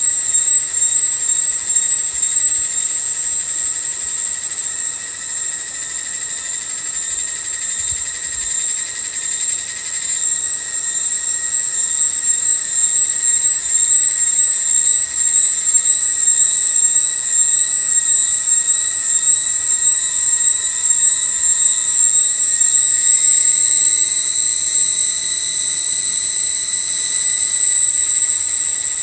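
Cicada chorus: a loud, steady, high-pitched shrill that swells about 23 seconds in and eases near the end.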